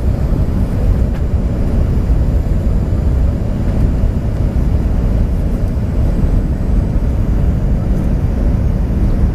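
Steady low rumble of a Singapore Airlines Airbus A380-800 in the climb after takeoff, its Rolls-Royce Trent 900 engines and airflow heard from inside the passenger cabin.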